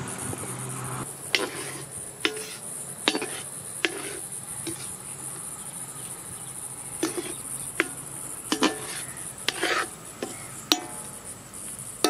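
Steady high-pitched drone of insects in the field, with about a dozen short sharp sounds scattered through it.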